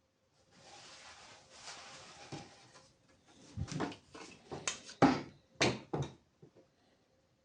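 A soft scrape of something sliding, then several sharp knocks and clatters, as of objects being handled and set down.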